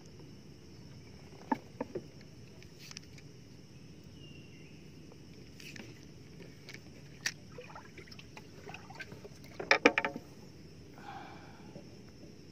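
Handling noise from baiting a fishing hook with peeled shrimp aboard a small boat: scattered light clicks and knocks, with a quick cluster of louder knocks about ten seconds in, over a faint steady high hiss.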